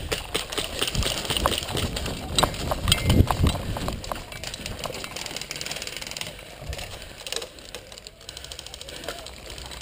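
A player moving through tall grass into cover: rustling and footsteps with handling knocks from gear, the heaviest thumps about three seconds in. It then turns quieter, with only scattered faint clicks.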